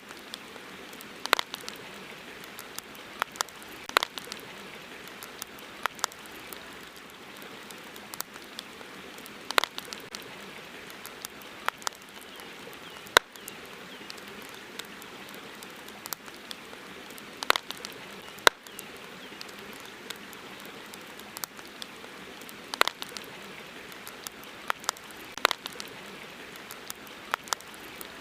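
Campfire crackling: irregular sharp pops and snaps, a few of them much louder, over a steady hiss.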